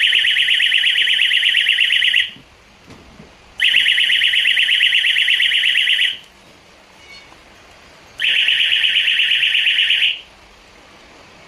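Emergency exit door siren sounding a high, rapidly pulsing electronic alarm tone in three bursts of about two seconds each, with short pauses between them.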